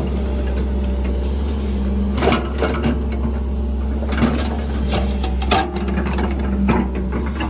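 Backhoe loader's diesel engine running steadily, with scattered knocks and clanks.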